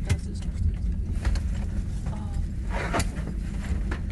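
Steady low rumble of airport apron machinery, with scattered knocks and a short clattering burst about three seconds in.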